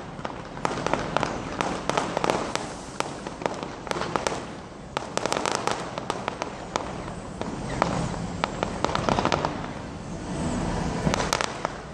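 A fireworks display firing continuously: rapid, irregular runs of sharp bangs and crackles from white strobing star effects.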